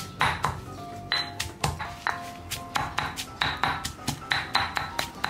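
Granite mortar and pestle pounding unpeeled Thai garlic cloves, a steady rhythm of sharp knocks about two to three a second with a short ring after many of them. The garlic is being crushed only coarsely at this stage.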